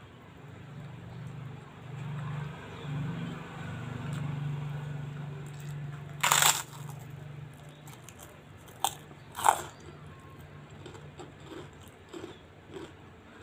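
Crisp bites into a large puffed kerupuk cracker: one loud crunch about six seconds in and two more about three seconds later, then the smaller crackle of chewing the cracker. A low hum runs under the first half.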